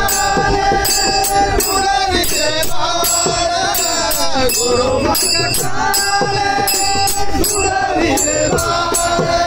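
A Marathi abhang devotional song sung by a male voice, kept in time by a steady beat of small brass hand cymbals (manjira) clashing.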